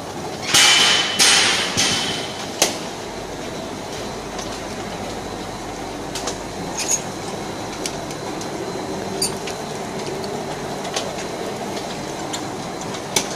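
Rock wool sandwich panel production line running: steel sheet travelling over conveyor and guide rollers, a steady mechanical rumble. About half a second in comes a loud burst of noise with a thin squeal in it that lasts over a second, then a sharp clank and scattered lighter clicks.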